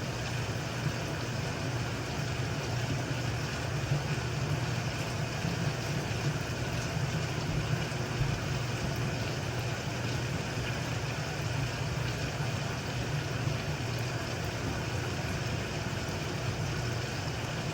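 A steady, low mechanical hum of a running motor or machine.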